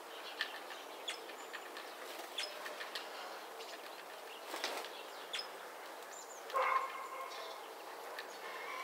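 Great tit pecking seed inside a hollow gourd feeder: scattered sharp taps and clicks, with a few thin, high chirps. About two-thirds of the way through, a louder call with a held tone.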